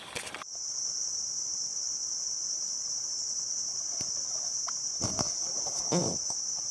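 Steady, high-pitched insect chorus that starts suddenly about half a second in, with a few soft clicks and rustles near the end.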